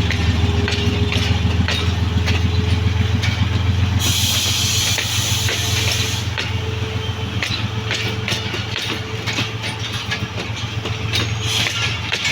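GE U20 diesel-electric locomotive's engine running with a steady low drone as the train pulls away, with scattered clicks throughout. A hiss of air about four seconds in lasts around two seconds. The sound eases slightly in the second half.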